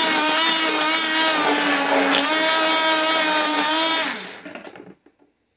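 Hand-held immersion blender running at speed, blending cottage cheese and cream in a plastic container: a steady motor whine that sags slightly in pitch midway, then winds down and stops about four seconds in.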